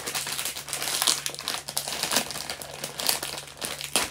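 Plastic bag of wrapped chocolates crinkling continuously as it is pulled open and handled, many quick irregular rustles, over a faint steady low hum.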